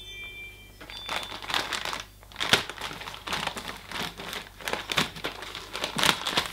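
Parcel packaging crinkling and rustling as it is pulled open by hand, in quick irregular crackles starting about a second in.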